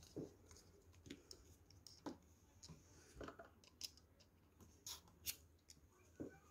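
Faint, scattered clicks and light taps of hands handling a small model diesel engine and its wooden propeller on a wooden test stand; the engine is not running.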